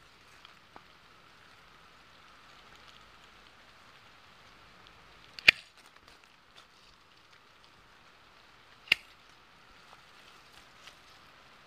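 Hand pruning shears snipping through apple tree shoots: two sharp snaps, about 5.5 s in and about 9 s in, with a faint click near the start. Faint steady hiss between the cuts.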